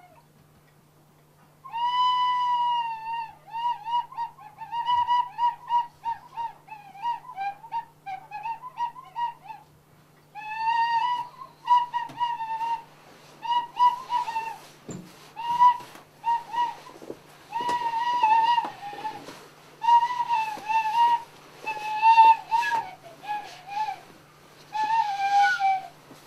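A lament played as a slow tune on a small end-blown wooden pipe. It comes in short phrases of high, wavering, sliding notes with brief pauses between them, starting about two seconds in.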